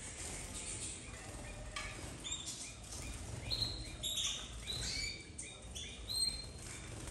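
Flock of domestic canaries giving many short, high chirping calls that overlap, busiest in the middle, with soft wing flutters as birds fly between perches.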